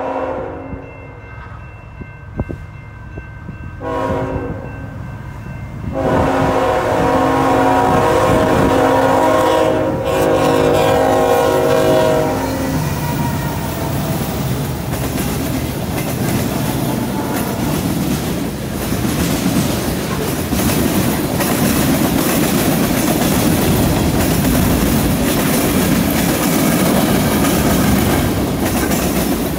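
A diesel freight train's locomotive horn sounds in several blasts as it approaches, faint at first and loudest from about 4 to 12 seconds in. The locomotives and tank cars then pass close by with a steady rumble and clatter of wheels on rail joints.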